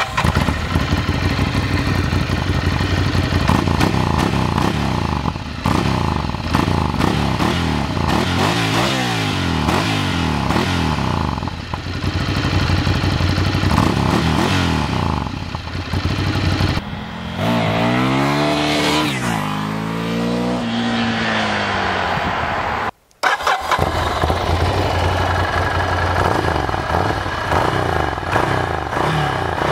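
Ducati Scrambler 800's air-cooled L-twin through a Termignoni exhaust, running at standstill and revved repeatedly, the revs rising and falling in long sweeps. The sound cuts out for a moment about two-thirds of the way through, then the engine carries on.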